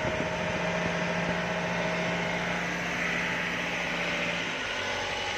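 Mahindra Major turbo-diesel jeep engine idling steadily, heard at the exhaust tailpipe.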